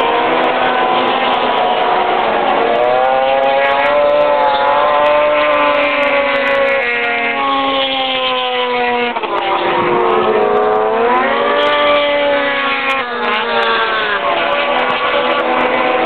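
Racing snowmobiles' two-stroke engines revving hard as several sleds lap an ice oval at once. The pitch climbs and falls as they accelerate and back off. About nine seconds in, one engine drops low and then winds back up.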